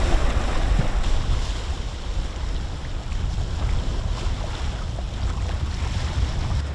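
Wind buffeting the microphone as a low rumble over the steady rush of water along the hull of a sailboat under way.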